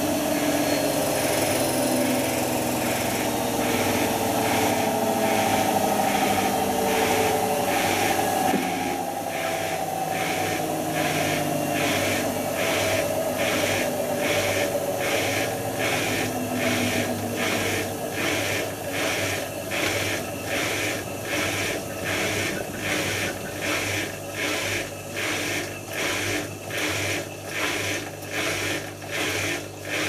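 Hotpoint HF8B593 washing machine winding down from its final 1500 rpm spin: the motor's whine falls steadily in pitch, the level drops about eight seconds in, and then each turn of the drum gives a rhythmic swish that slows to about two a second as the drum coasts down.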